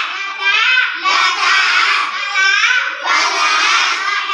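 A group of young girls singing a chanted rhyme together in unison, in phrases of about two seconds with short breaths between.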